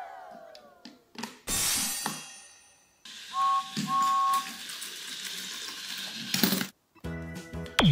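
Battery-powered Plarail Thomas toy train running over plastic track, a steady whirring hiss, with a two-note whistle tooting twice in quick succession near the middle. A short rushing noise comes just before.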